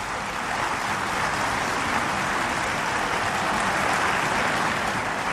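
Members of parliament applauding: dense, steady clapping from many hands that swells a little and eases off near the end.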